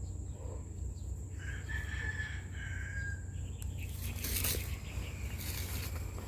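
A rooster crowing once, a drawn-out call lasting about two seconds, over a steady low rumble. A short rush of noise follows about four seconds in.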